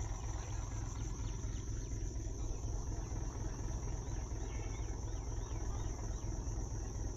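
Outdoor village ambience: a steady low rumble with a thin, steady high buzz above it, and a quick run of about five small chirps about four seconds in.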